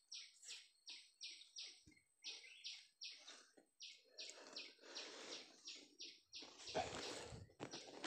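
Faint rhythmic scraping of digging into dry earth, about three short strokes a second. Near the end the strokes run together into louder, fuller scraping and rustling of soil.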